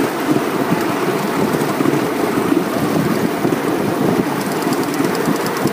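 Miniature live-steam locomotive running along the track: a steady, rough rumble of the engine, wheels and steam. A fast, light ticking joins about four seconds in.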